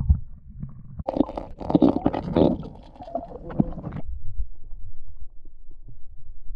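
Muffled underwater rumble of pool water around a submerged camera, with a louder spell of sloshing and gurgling from about one to four seconds in, then a quieter rumble.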